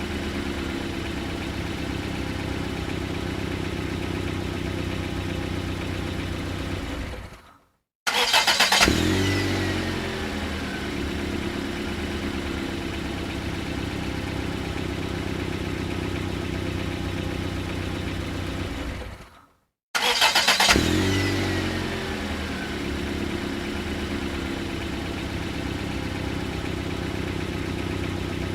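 Car engine idling steadily. Twice it fades out, and each time it is started again: a short burst of starter cranking, the engine catching with a brief rev and a falling whine, then settling back to a steady idle.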